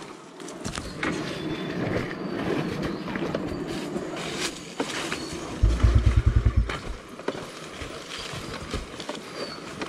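Honda XR250 Tornado dirt bike coasting down a dry dirt trail with its engine off: tyres crunching over soil and stones, with scattered knocks from the bike. A loud low rumble lasts about a second near the middle.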